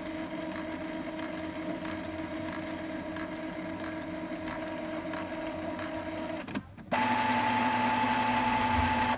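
Epson L3150 inkjet printer's internal motors whining steadily as the printer works through a print head cleaning cycle, with faint regular ticks. About six and a half seconds in it pauses briefly, then starts again louder at a different pitch and stops suddenly.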